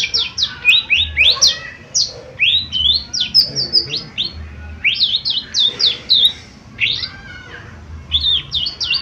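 Lesser green leafbird (cucak ijo mini) singing a fast, loud run of sharp whistled notes, most sweeping steeply downward, with a brief pause near the end.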